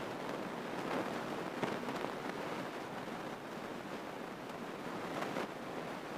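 Cabin noise of a Grumman light single-engine airplane on approach with flaps down at low speed: an even rush of air and engine with no clear engine note.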